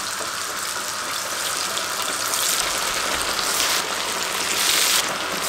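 Masala-coated fish pieces deep-frying in hot oil: a steady hissing sizzle, with a few louder surges in the second half as more coated pieces are dropped in.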